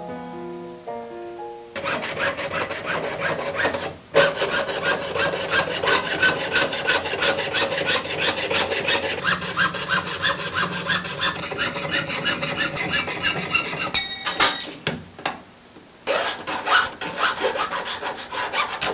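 A hand tool scraping along sheet metal in quick, even strokes, about three a second, scoring a groove for a fold. The strokes break off briefly near the start and again after a short metallic clatter near the end, then resume.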